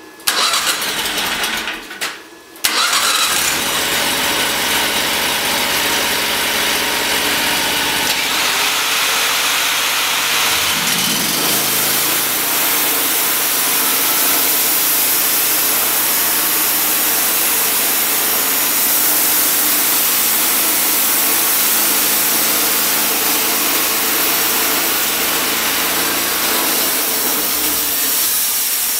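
Sawmill engine cranking and catching in the first two to three seconds, then running steadily under the mixed whine of the band blade and a right-angle-grinder debarker. The debarker cuts a strip of bark ahead of the blade so the blade runs in a clean groove.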